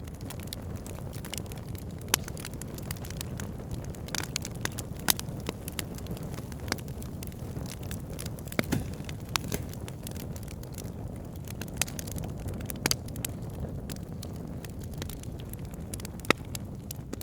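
A campfire burning: a steady low rumble of flames with irregular crackles and sharp pops of burning wood, a few louder pops standing out.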